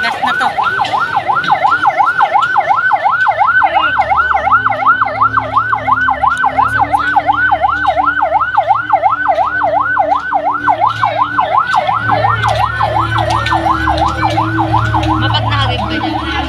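Rescue van's siren sounding a fast yelp, its pitch sweeping up and down about four times a second, with a low vehicle engine rumble underneath.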